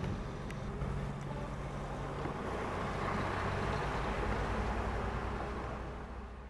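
Articulated truck's diesel engine running as the truck pulls away and turns past, a steady low drone. Tyre and road noise grows as the trailer passes closest, about halfway through, then everything fades out at the very end.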